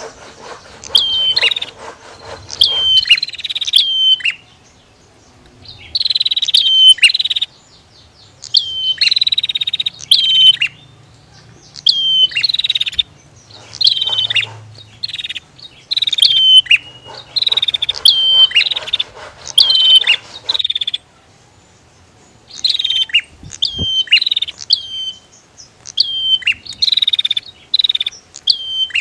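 Prinias (prenjak) calling, a female and a male answering each other in a fast run of sharp, scratchy chirps and trills. The calls come in bursts broken by short pauses, with one sharp click near the end.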